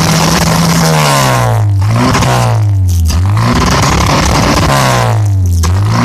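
1986 Pontiac Fiero's 2.5 L Iron Duke four-cylinder running at raised revs, the engine speed sagging and climbing back up three times as the throttle is worked.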